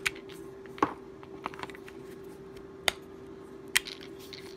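Hard plastic clicks as the Hart pressurized cleaner's nozzle attachments are handled and snapped together: four sharp clicks at uneven intervals with a few softer ones between, over a faint steady hum.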